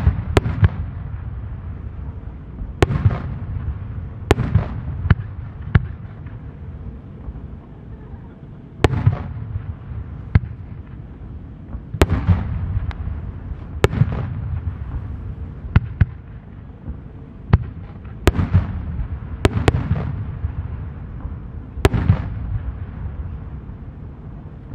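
Aerial firework shells bursting in the sky one after another, with a sharp bang every one to three seconds, each followed by a low rolling rumble of echo.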